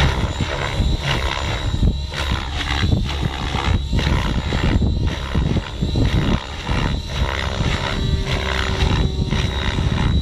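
Align T-Rex 700E electric RC helicopter flying aerobatics: the main rotor blades whoosh in repeated swells as the blade pitch changes, over a steady high whine from the motor and gears.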